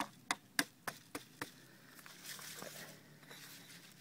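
About six sharp clicks and knocks in the first second and a half, then a faint scraping rustle: a round rubber flushing muff on its metal clamp being worked into place over the water intake on an outboard's lower unit.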